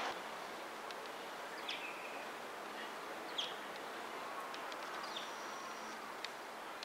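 Eurasian tree sparrow chirping: three short, slightly falling chirps spaced a little under two seconds apart, over a steady background hiss.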